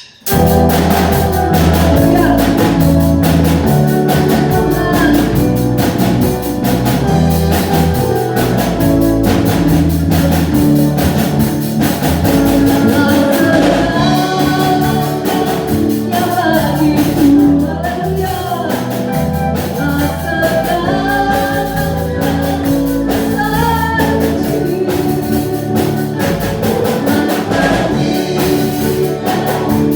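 A Christian worship song played by a band with guitar and drums, starting abruptly right at the start, with singing over it.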